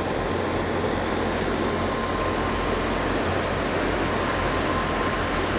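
Fishing boat's engine running steadily as it motors past close by, mixed with the rush of its wake through the water.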